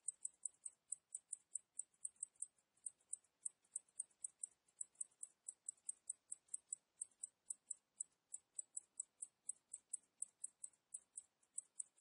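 Cicadas chirping in a steady, even rhythm of short high-pitched pulses, about five a second.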